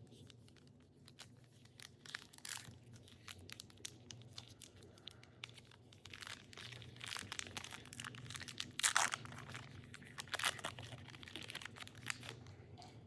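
A baseball card pack's wrapper being torn open and crinkled, with irregular crackling and two louder tearing bursts about nine and ten and a half seconds in.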